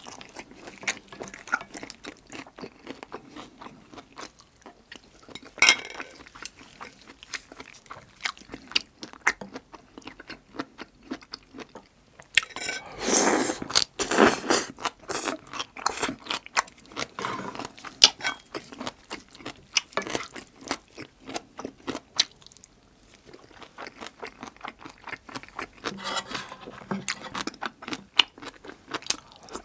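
Close-miked chewing and smacking of mouthfuls of jjajang rice and side dishes, with quick clicks of a wooden spoon and chopsticks against the plate. A louder, denser stretch of mouth noise comes about halfway through.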